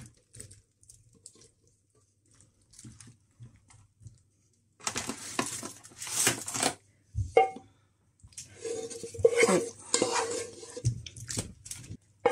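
Spoon scraping a wet potato mixture out of a pot into a foil baking tray, with the clatter of the spoon against the pot: faint at first, then two spells of scraping from about five seconds in.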